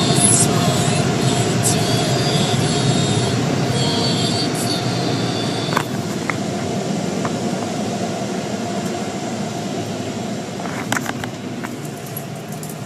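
Car wash running: a steady rushing and rumbling with high squeals in the first few seconds and a few sharp clicks later, slowly fading.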